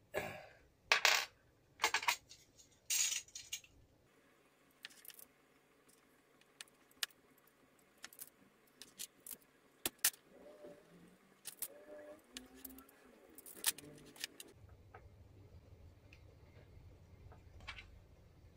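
Metal cable lugs and tools clinking and clattering as lugs are worked onto the ends of heavy 16 mm² battery cable: a few loud clatters in the first four seconds, then lighter scattered clicks, with a faint low hum near the end.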